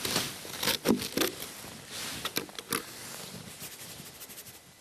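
Snap-lid plastic food container being pried open: a quick run of sharp plastic clicks and cracks in the first second and a half, a few more near the middle, then faint rustling.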